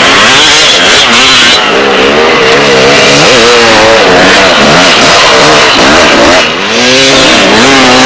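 Two-stroke motocross bike being ridden hard in deep sand, its engine revving up and down over and over as the throttle is worked. Very loud, with a short drop in loudness about six and a half seconds in.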